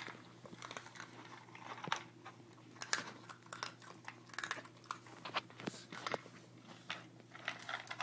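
A small dog chewing and crunching its dinner, with irregular crisp crunches.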